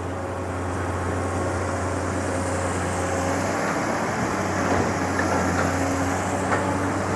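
Long-arm excavator's diesel engine running with a steady low hum while it works the levee.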